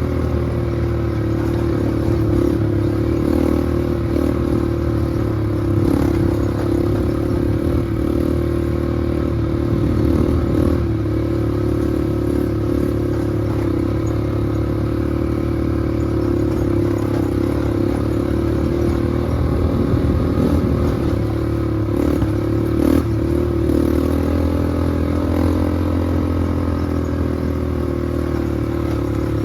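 Small off-road vehicle engine running at a fairly steady speed under way, with rattling and clatter from the ride.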